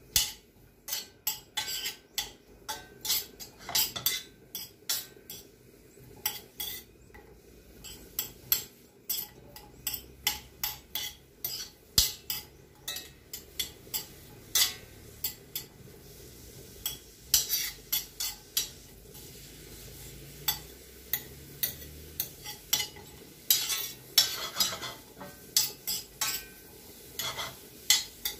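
A cooking utensil stirring onion rings in butter in a stainless steel frying pan, clicking and scraping against the metal at irregular intervals over a faint steady sizzle.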